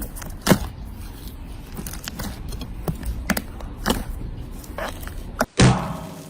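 Slime being handled, with scattered sticky clicks and pops every second or so. About five and a half seconds in it cuts suddenly to a louder, denser sound.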